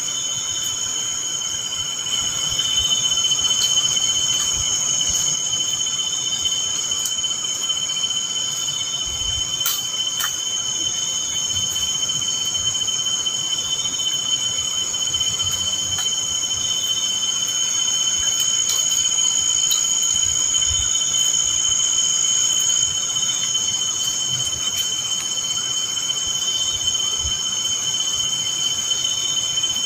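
Chorus of night insects chirring steadily in several high, unbroken tones, with a fainter pulsing call repeating every couple of seconds. A few faint clicks come about ten seconds in.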